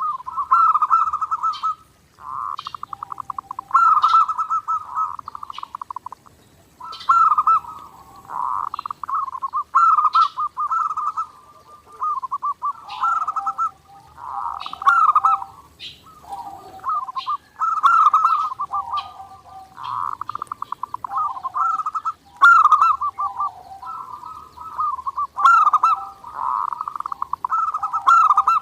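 Zebra dove (perkutut) cooing over and over: phrases of fast stuttering notes that run into short gliding coos, one after another with brief gaps.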